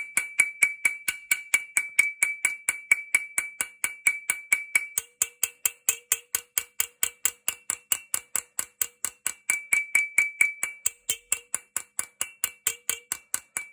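Small hammer tapping steadily on a steel shotgun action, about four strikes a second, each with a ringing metallic note. It is percussion to shock penetrating fluid through rust-welded plates and free a seized screw.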